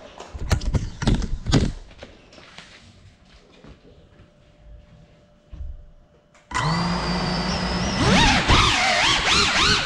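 FPV racing drone crash: a few sharp knocks as the quad tumbles and comes to rest, then a quiet stretch. About two-thirds of the way in its electric motors start up suddenly with a steady whine, then their pitch rises and falls repeatedly as the throttle is worked to get it airborne again.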